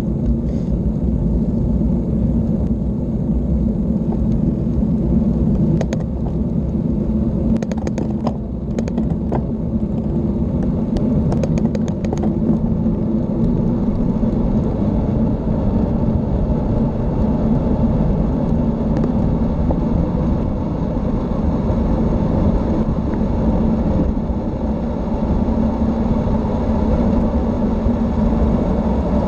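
Steady low rumble of wind and tyre noise from a vehicle travelling fast downhill on asphalt, with a few short sharp clicks in the first half.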